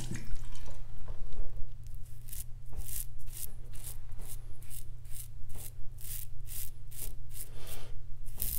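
Parker 63C open-comb safety razor scraping through stubble on a lathered neck, going against the grain. Short rasping strokes come in quick runs of about two to three a second from about two seconds in.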